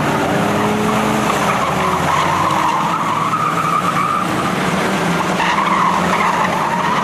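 Several mini stock speedway cars' engines running hard as they race around a dirt oval, their engine notes rising and falling as they pass through the bend.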